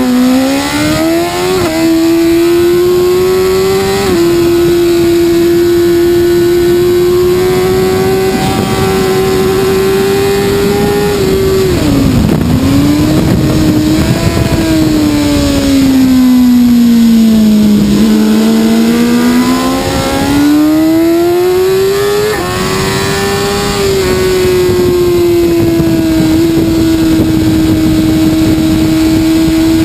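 BMW S1000RR inline-four engine at racing speed, heard on board with wind noise. The revs climb with two quick upshifts in the first few seconds and hold high. They dip sharply about twelve seconds in, sink slowly, then climb again with another shift, and run fairly steady near the end.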